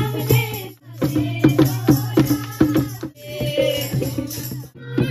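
Kirtan music: group devotional singing over a dholak beat with jingling hand percussion. It breaks off abruptly for a moment about a second in and again near the end.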